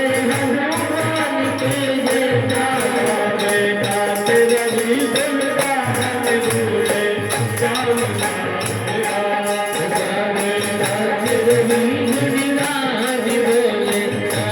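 Kirtan devotional music: a melodic line over a steady drum beat and a fast, continuous jingling of a rattle or small cymbals.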